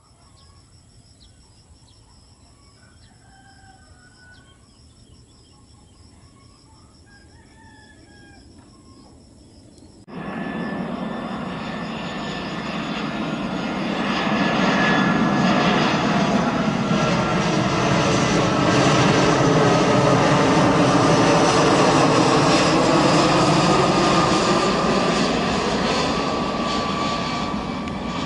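Faint bird calls, a rooster crowing among them. About ten seconds in, these give way abruptly to the loud jet noise of an Airbus A320 on final approach with its landing gear down. The noise swells as the aircraft comes overhead and eases a little near the end.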